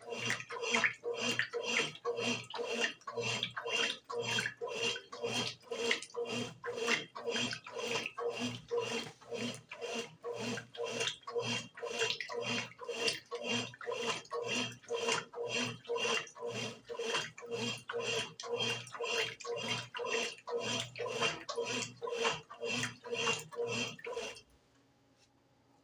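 Brastemp BWG11 11 kg washing machine washing a load on its bed-and-bath cycle, the motor swishing the clothes and water back and forth in an even rhythm of about two strokes a second. It stops suddenly near the end.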